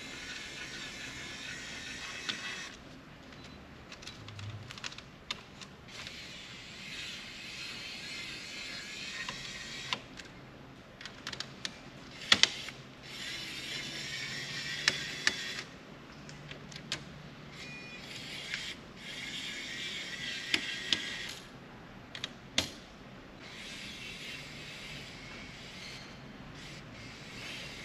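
Kaiweets ES20 electric screwdriver's small motor and gearbox running in several runs of a few seconds each, driving small Phillips screws out of a laptop, with sharp clicks of screws and parts being handled between runs.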